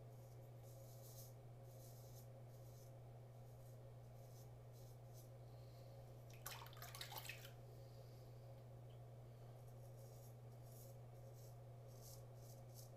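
Custom 7/8 inch near-wedge straight razor scraping through lathered stubble on a shaved scalp: a run of faint, short, hissing strokes, with one louder, rougher stroke about halfway through. A steady low hum runs underneath.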